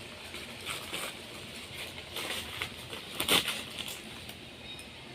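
Packaging being handled during unboxing: intermittent rustling and crinkling, with one louder crinkle a little over three seconds in.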